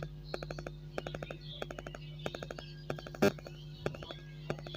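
A string of small clicks and taps from handling and connecting speaker wires to a 4440 IC amplifier, over a steady low hum.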